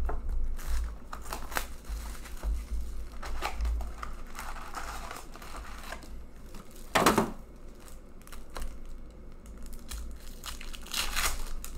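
Foil packs of hockey trading cards crinkling as they are handled and torn open, with scattered clicks of the cardboard box. The loudest sound is one sharp rip about seven seconds in.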